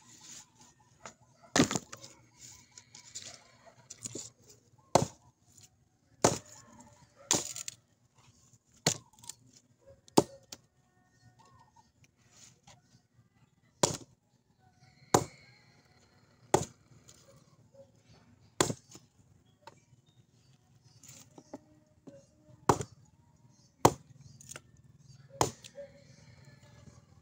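Chopping with a blade: about fifteen sharp blows, irregularly spaced a second or two apart, with a few longer pauses.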